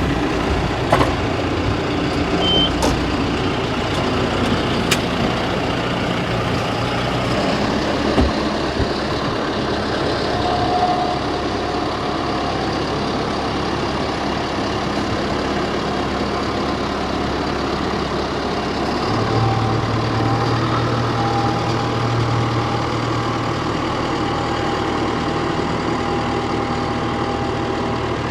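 John Deere 6120E tractor's diesel engine running steadily, its note changing twice, about a quarter and two-thirds of the way through, with a few light clicks near the start.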